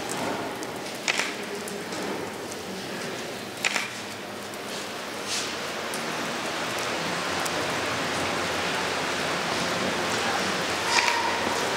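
Smouldering matches on a wall giving off a steady crackling hiss, with a few sharp pops, as their embers burn out.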